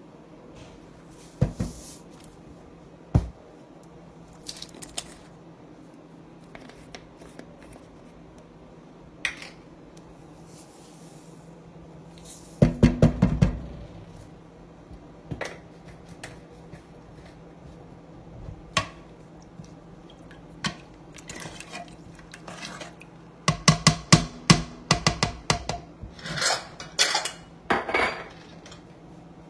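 A ladle clinks and knocks against a stainless steel pot while stirring vegetables in water. The clinks are scattered, with a quick run of knocks about halfway through and a denser run near the end.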